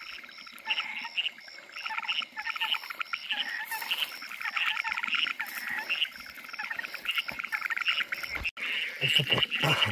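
A chorus of frogs calling: many overlapping, rapidly pulsed croaks, with a separate high-pitched call pulsing evenly about three times a second behind them.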